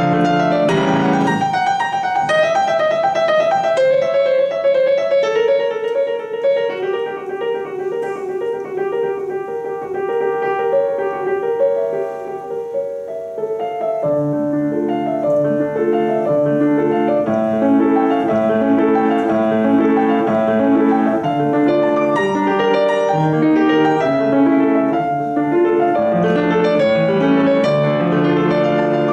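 Solo grand piano playing: a melody stepping downward over a lighter accompaniment, then fuller chords with bass notes coming back in about halfway through.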